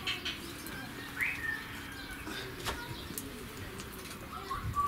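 Garden birds chirping in short calls, over a small wood fire crackling now and then in a folding camp stove, with one sharp crack about halfway through.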